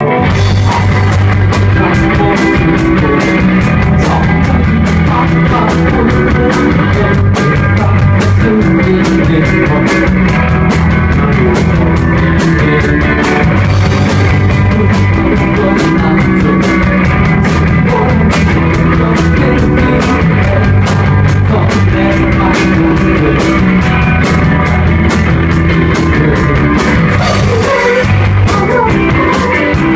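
Rock band playing live: drum kit, bass and electric guitar in a steady, driving rhythm, loud throughout.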